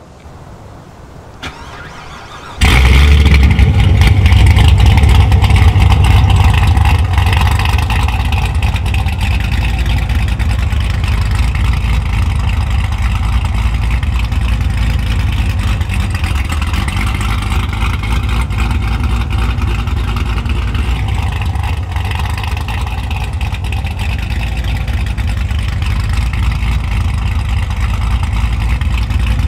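A click, then about a second later a car engine fires up suddenly and loudly, and runs steadily with a deep low rumble, settling a little after the first few seconds.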